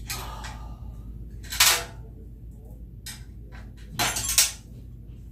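Clattering and clanking of metal mesh furniture parts being handled and pulled apart during flat-pack assembly, with a few sharp knocks, the loudest about a second and a half in and a cluster around four seconds in.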